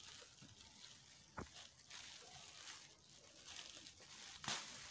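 Faint crinkling of a clear plastic packaging bag being handled and peeled, with a sharp click about a second and a half in and a louder crackle near the end.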